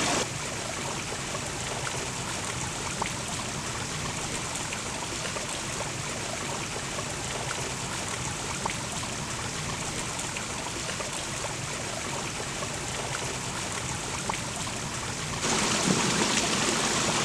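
Steady rushing, trickling noise of running water, like a small stream. It gets louder and brighter about fifteen seconds in.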